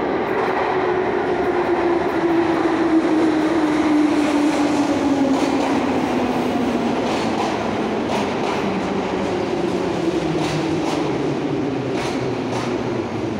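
Em-501/Ema-502 metro train pulling into a station and braking. Its traction motor whine falls steadily in pitch as it slows, and sharp wheel clicks over the rail joints come in during the second half.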